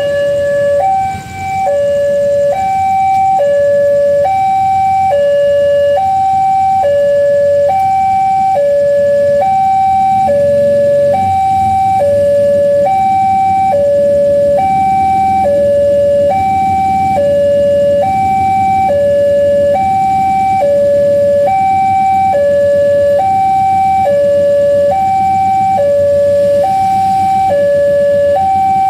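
Railway level-crossing warning signal sounding a steady two-note alarm, a high and a low tone alternating about every 0.7 seconds. A low rumble grows beneath it from about ten seconds in.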